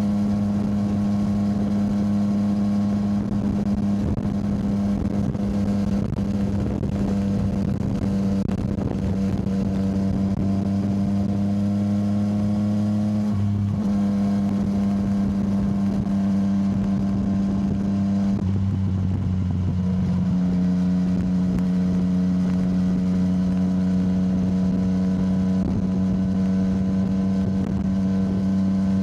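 Yamaha motorcycle engine running at a steady cruise, its note holding nearly level. It changes briefly about halfway through and again about two-thirds in, as with a throttle change or gear shift. Some wind rush is mixed in during the first half.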